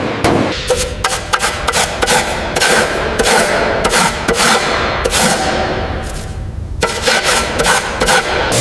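Hammering: an irregular run of sharp strikes, several a second, with a short ringing after some of them and a brief pause near the end.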